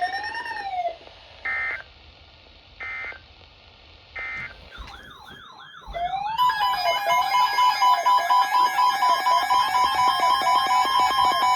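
Emergency Alert System broadcast audio. A warbling alert tone ends, then three short digital data bursts sound about a second and a half apart: the end-of-message code that closes an EAS alert. About six seconds in, a loud warbling, siren-like tone starts, rising and falling repeatedly with a rapid pulse.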